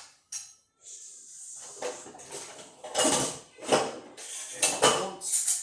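Dishes and cutlery clattering as they are loaded into a dishwasher, with a short hiss near the start and then several knocks and clinks about a second apart.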